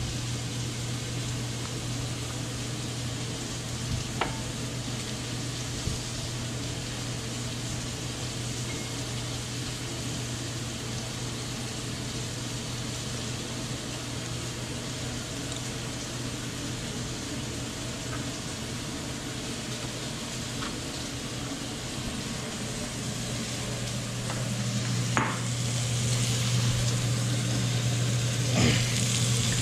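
Diced zucchini, squash and eggplant frying in olive oil in an enameled cast-iron Dutch oven: a steady sizzle with a low hum underneath. The sizzle grows louder near the end, with a few light knocks.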